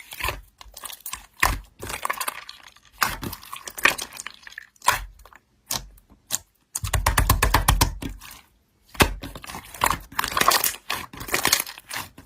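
Slime being pressed and stretched by hand, giving irregular bursts of crackling, crunchy clicks and pops, with a dense run of rapid clicks around the middle.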